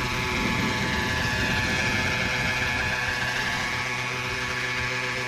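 Gas-powered 800-size Century RC model helicopter in flight: its engine and rotor run steadily, the pitch wavering slightly.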